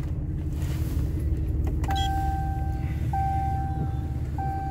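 The truck's dashboard warning chime sounds a single clear tone, starting about two seconds in and repeating roughly every second and a quarter, over a low steady rumble.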